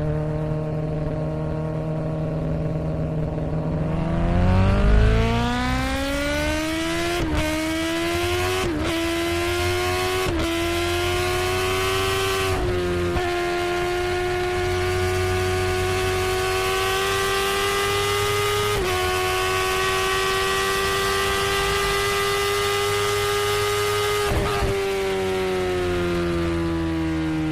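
Kawasaki ZX-10R inline-four engine running at a steady low note, then rising in pitch about four seconds in. Four brief breaks follow over the next several seconds, then it holds a high steady note before the revs fall near the end.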